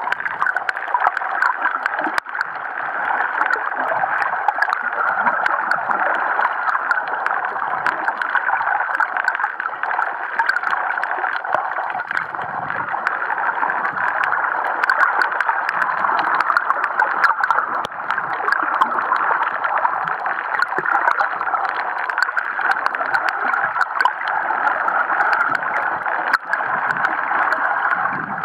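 Muffled, steady rushing and gurgling of water picked up by a camera held just under the sea surface, with many faint sharp clicks scattered through it.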